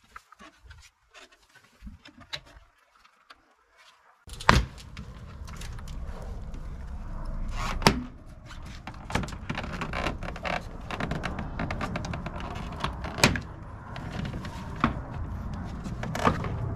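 Plastic retaining clips snapping loose as a molded front trim panel on a Chevrolet Silverado HD is pried off by hand: several sharp snaps among light plastic handling noise. From about four seconds in, a steady background noise runs under them.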